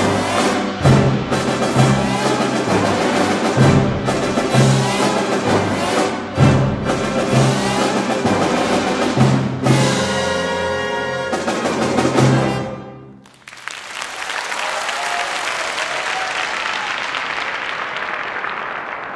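Symphony orchestra playing a loud passage with regular heavy strokes, closing on a held final chord about thirteen seconds in. Audience applause follows and fades out near the end.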